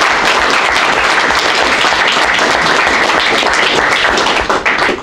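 Small audience applauding: many hands clapping steadily, stopping near the end.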